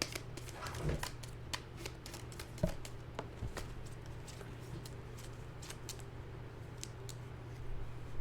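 Tarot cards being handled: a string of irregular light clicks and flicks as the cards are shuffled and laid down, over a steady low hum.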